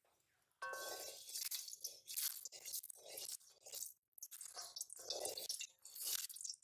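Hot oil sizzling in an aluminium karahi over a wood fire, starting suddenly about half a second in, with a wooden spatula stirring and scraping through it in repeated strokes.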